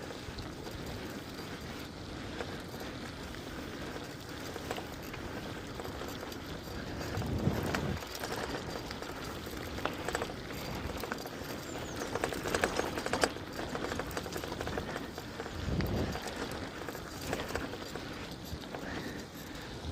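Electric bike ridden over rough off-road ground: steady rolling noise of the tyres with frequent clattering knocks and rattles, busiest around the middle, and two short low rumbles.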